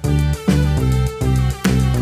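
Background music: pitched notes over a bass line, struck in a steady rhythm about two times a second.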